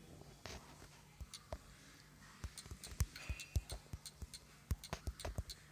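Fingertips tapping on a smartphone's touchscreen keyboard while typing a message: a run of quick, irregular taps, with a faint steady hum underneath.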